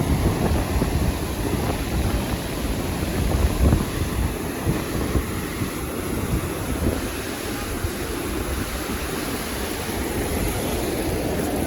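Wind buffeting the phone's microphone over a steady rush of outdoor noise, with uneven low rumbling gusts.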